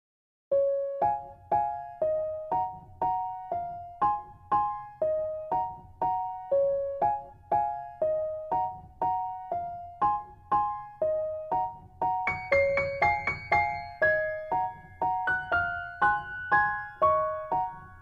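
Background music: a light melody of single struck notes, each dying away, at about two notes a second, with a higher line joining about twelve seconds in.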